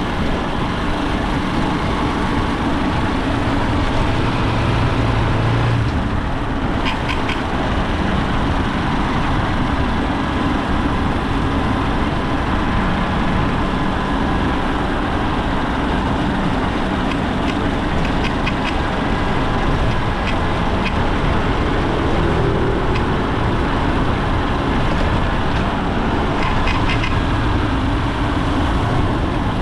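Honda XR190 single-cylinder motorcycle engine running steadily, with a few faint clicks along the way.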